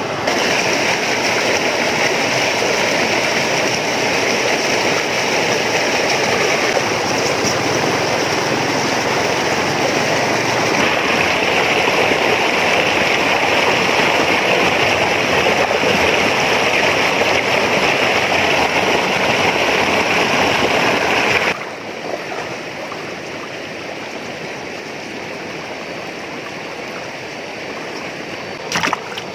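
Swollen stream in flood rushing around a wader's legs and spilling over a low ledge: a loud, steady rush of water. About three-quarters of the way through it drops suddenly to a quieter rush, with a single short knock near the end.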